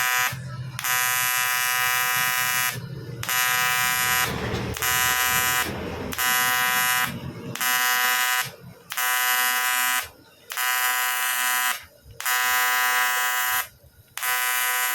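TIG welding arc buzzing on a CT100 motorcycle engine block, in repeated runs of one to two seconds with short breaks between them.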